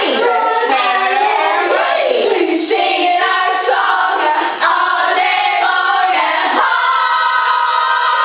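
Several children's voices singing together, with long held notes.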